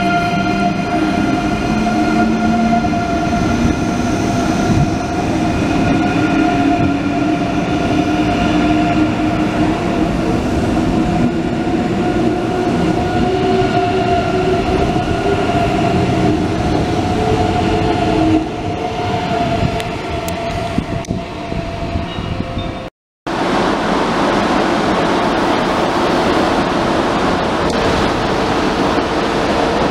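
ICE 3 electric multiple unit pulling away from a platform, its traction drive giving a whine of several steady tones, the lowest rising slowly as it picks up speed. After a cut near the end, an ICE 1 train rolls past with a loud even rushing of wheels on rails.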